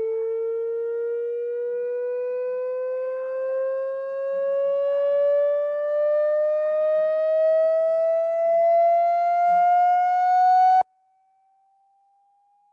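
Electronic test tone in a frequency sweep, a steady hum with overtones rising slowly in pitch. About eleven seconds in it suddenly drops to a faint, thin pure tone that keeps climbing.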